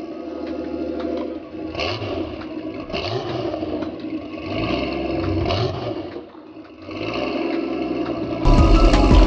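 A car engine revving in several rising and falling blips, dipping briefly about six seconds in. Near the end, loud music cuts in.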